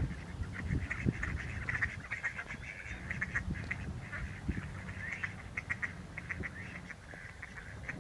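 Mallard ducks calling on a pond, a dense run of short quacks and chatter that keeps going throughout, with a sharp click right at the start.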